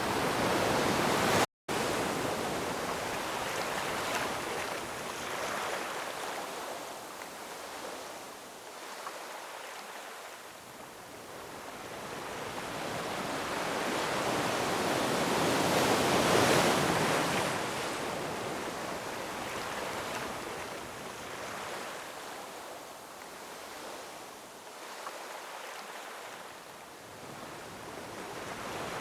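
Ocean surf washing over rocks: a steady rushing wash that swells as a wave comes in, peaking about halfway through, and ebbs between waves. It cuts out for an instant about a second and a half in.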